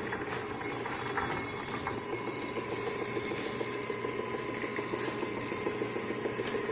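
Electric tortilla machine running steadily, its motor and masa rollers making an even mechanical hum.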